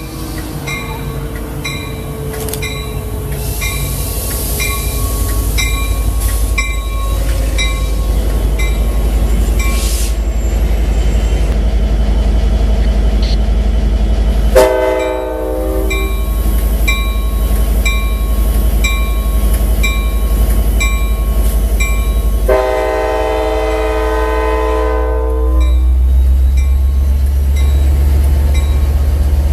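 Amtrak California F59PHI diesel locomotive rumbling as it moves slowly past close by, growing louder over the first few seconds, with a bell ringing about twice a second. Its horn sounds twice: a short blast about 15 seconds in and a longer one about 23 seconds in. The engine's rumble grows louder again near the end.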